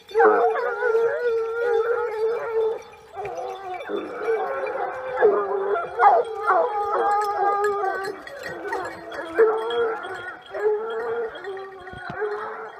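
A pack of Gascon Saintongeois hounds baying together, several voices in long overlapping notes, as they give tongue while working a wild boar's scent line.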